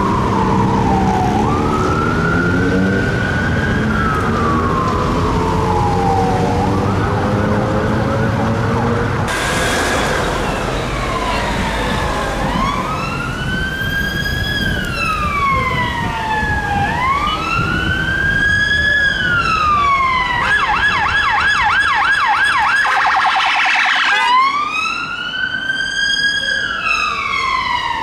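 Electronic sirens of British emergency vehicles wailing, rising and falling slowly, over a vehicle engine accelerating. After a change of scene a siren wails, switches to a rapid yelp for a few seconds, and goes back to the wail, with a second siren overlapping it near the end.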